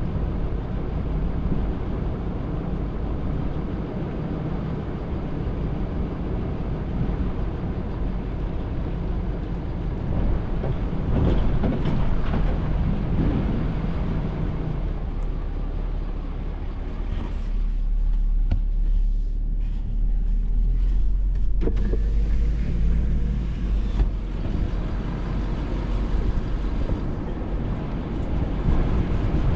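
Wind rumbling and buffeting on the microphone in gusts, a deep steady roar that swells about a third of the way in and again past the middle.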